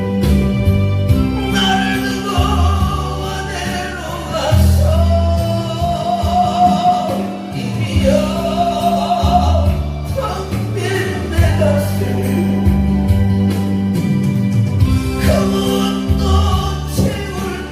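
Korean trot song playing through a PA with a full backing track. A held, wavering melody line runs over steady bass and accompaniment between sung lines.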